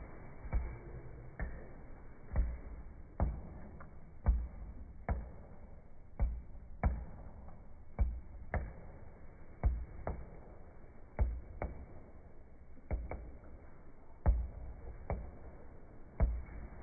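A run of sharp knocks, each with a low thud, about one a second at an uneven pace.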